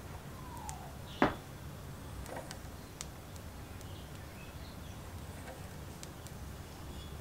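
Pliers gripping and twisting the metal terminal tip of a spark plug held in a vise: a short falling squeak, then one sharp metallic click about a second in, followed by a few faint ticks over a steady low hum.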